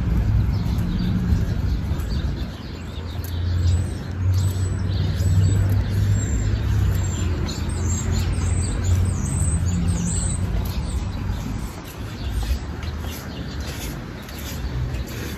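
Small birds chirping in quick short calls over the steady low rumble of street traffic.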